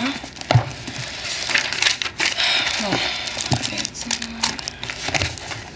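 Book pages flipped and rustled, with books handled and set down on a wooden table in several dull knocks.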